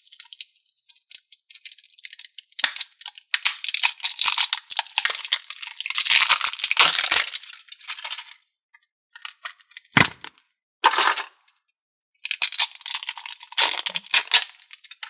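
Slime or putty being squished and stretched by hand, giving bursts of fast crackling clicks and small pops, with a single knock about ten seconds in.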